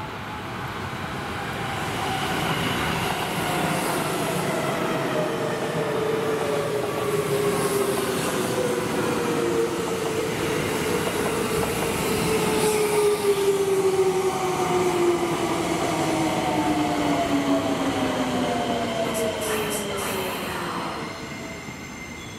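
Seibu Shinjuku Line electric train slowing as it comes into the station, its traction motor whine made of several tones that fall steadily in pitch while the running noise swells and then fades. A few short sharp clicks near the end.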